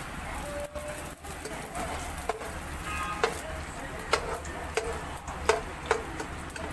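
Chopped garlic sizzling in hot cooking oil in a pan, a steady frying hiss. A run of sharp clicks comes in the second half.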